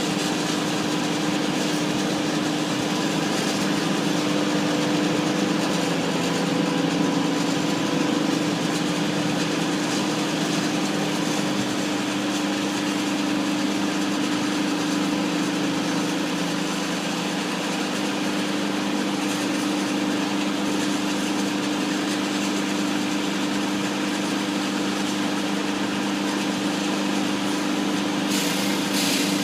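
Gas-powered concrete saw running steadily at a constant pitch, with the hiss of cutting over the engine note.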